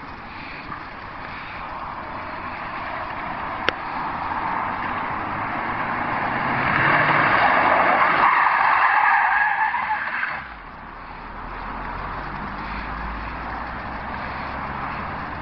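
Hatchback car drifting, its tyres squealing and skidding as it sweeps past close by. The noise builds to a loud peak and cuts off sharply about ten seconds in. Afterwards only the car's engine is heard, a low steady hum.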